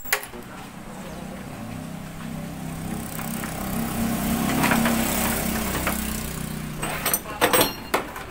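A motor vehicle engine running, growing louder to about the middle and then fading away, with a few sharp clinks near the end.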